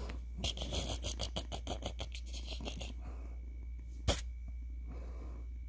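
A kitten scuffling: a rapid run of short scratchy ticks, about eight a second, for over two seconds, then a single sharp click about four seconds in.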